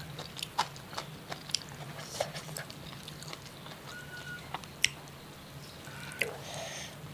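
Someone biting and chewing crisp food, with irregular sharp crunchy clicks.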